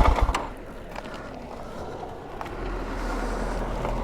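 KTM 690 SMC R's single-cylinder LC4 engine, with a full LeoVince exhaust, idling and then cut off right at the start, the firing pulses stopping abruptly. Afterwards only a faint low rumble of wind and surroundings with a few small ticks.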